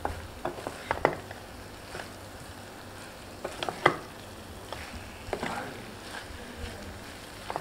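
Wooden spatula stirring shredded cabbage sabzi in a metal pot, with scattered scrapes and knocks against the pan over a steady quiet sizzle of frying.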